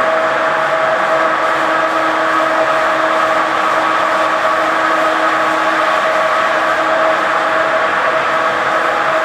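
Machinery running steadily: a constant hum with a steady whine of several fixed tones, unchanging throughout.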